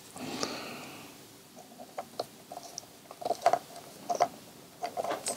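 Small plastic clicks and rustling of hands screwing a Posi-Tap wire connector onto a motorcycle wiring-loom wire, its pin piercing the wire's insulation. The clicks come scattered, several in quick succession about three and a half seconds in.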